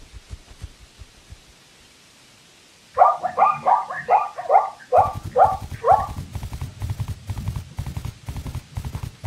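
An animal giving a quick run of about eight short, barking calls over some three seconds, followed by a low, rhythmic thudding.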